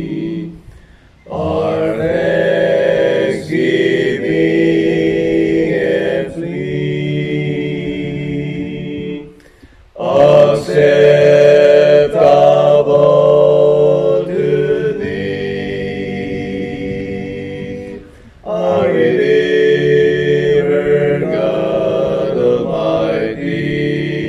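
A man singing a slow hymn unaccompanied, in long held notes. He sings three phrases and breaks briefly for breath about a second in, near ten seconds, and near eighteen seconds.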